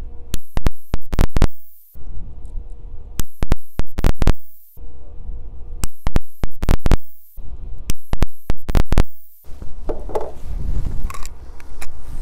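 SIG Sauer P320 pistol firing in quick strings of shots, several a second, with short pauses between strings. The firing stops about three-quarters of the way through.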